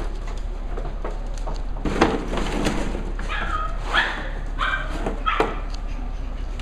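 Cavalier King Charles Spaniel puppies yipping: about four short, high yips between three and five and a half seconds in. A thump comes just before them, about two seconds in, and is the loudest sound.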